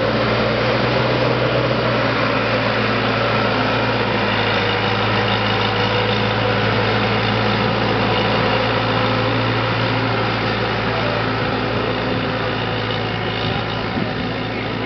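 Engine of a 95 hp rubber-tracked crawler tractor running steadily as it travels, with an even, unchanging pitch; it grows slightly quieter over the last few seconds as the machine moves off.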